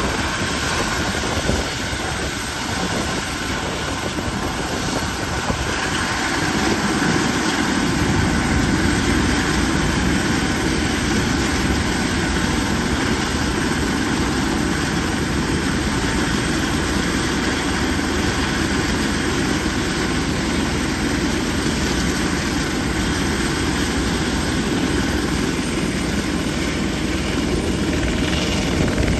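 Airbus EC120B Colibri helicopter running on the ground, its Turbomeca Arrius 2F turboshaft and turning rotor making a steady noise. The sound gets fuller and a little louder about seven seconds in, then holds steady.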